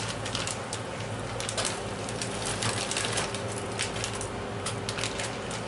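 Pot of water at a rolling boil: steady bubbling with a fast patter of small clicks and crackles, as fresh gnocchi are tipped in from a plastic bag and stirred with a wooden spoon.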